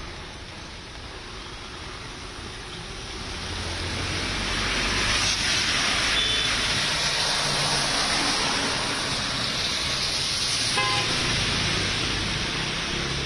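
Road traffic in heavy rain: a steady hiss of tyres on wet, waterlogged tarmac over the low hum of engines. It grows louder about four seconds in, and a short vehicle horn toot sounds late on.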